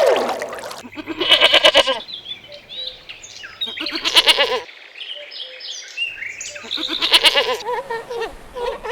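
A goat bleating three times, about three seconds apart, each call a short quavering bleat.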